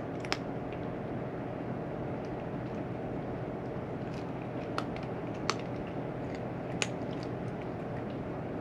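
Steady low background hum, with a few short sharp clicks: one just after the start and three between about five and seven seconds in.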